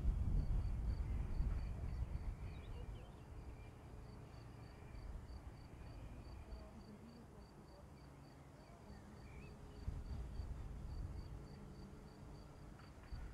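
An insect chirps in a steady high-pitched pulse, about three chirps a second, over a low rumble that is loudest at the start, dies away over a few seconds and swells again near the end.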